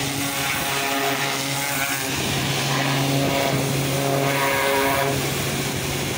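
Karcher commercial pressure washer blasting mud off an excavator's steel crawler tracks: a steady hiss of the water jet over a steady droning hum.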